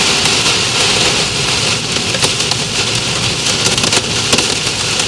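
Heavy rain with hail drumming on a moving car, heard from inside: a dense, steady hiss with scattered sharp ticks of hailstones striking the roof and glass.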